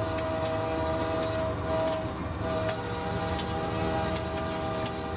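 Diesel locomotive heard from inside its cab while rolling: a steady engine rumble under a steady high whine, with scattered sharp ticks and rattles.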